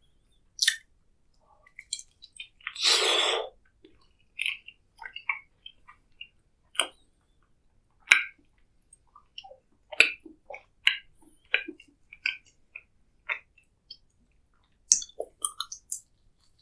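Close-miked chewing: wet smacks and small sticky clicks of food being eaten, with one longer, louder burst about three seconds in.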